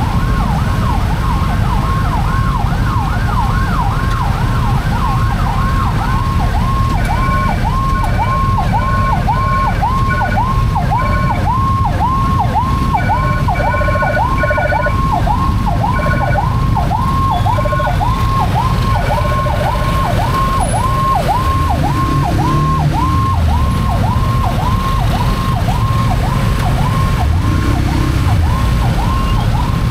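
An emergency-vehicle siren sounding in a fast up-and-down yelp, about two sweeps a second, with a second, higher siren overlapping for the first several seconds. Broken higher tones come and go in the middle, over a steady low rumble of engines and traffic.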